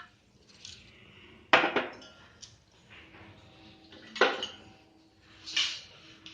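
A few separate knocks and clanks of a cooking pot and kitchen utensils being handled and set down, the loudest about one and a half seconds in, another about four seconds in and a softer one near the end.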